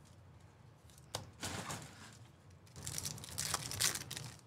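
Trading-card pack wrappers crinkling and tearing as packs are ripped open, in several short rustling stretches, with a sharp click about a second in.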